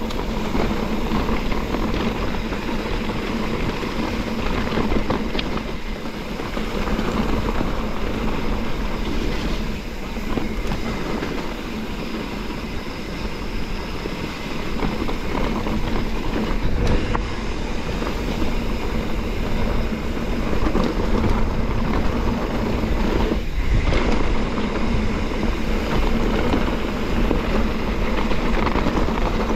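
A YT Capra mountain bike rolling over a loose, rocky trail: knobby tyres crunching on gravel and stones with the bike rattling over the bumps, a continuous rough noise.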